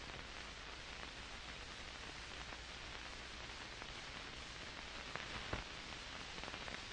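Steady hiss of an old film soundtrack with a low hum underneath, and a couple of faint clicks about five seconds in.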